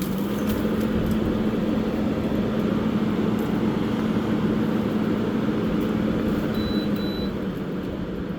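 Frigidaire 8,000 BTU window air conditioner switched on, its fan spinning up and then running with a steady hum over a rush of air.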